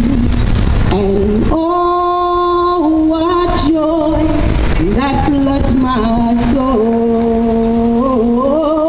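A woman singing a worship song to the Lord into a microphone, amplified through a loudspeaker. She holds long, steady notes and slides between pitches.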